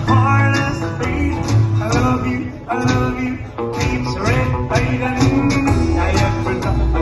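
Live honky-tonk country band playing an instrumental break, with twangy plucked-string lead lines over a steady beat.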